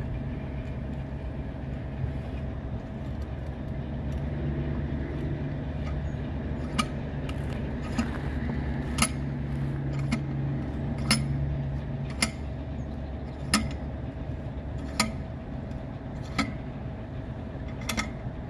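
An engine idling steadily with a low hum. From about a third of the way in, sharp clinks come roughly once every second or so.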